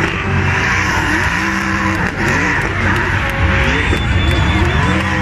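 Drift car engine revving hard while the car slides, its revs climbing, holding and dropping again several times, over the constant screech of spinning tyres.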